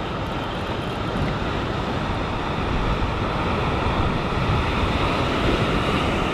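Steady rushing noise of sea wind on the microphone and surf washing against the rocks.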